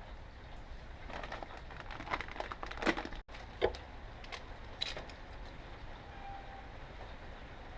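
Scattered clicks, knocks and rattles of hand work on parts during a muffler replacement, bunched between about one and five seconds in, over a steady low rumble; the sound cuts out for an instant about three seconds in.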